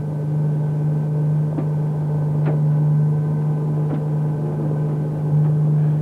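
Steady low machinery drone aboard a navy patrol boat, with a few faint knocks now and then.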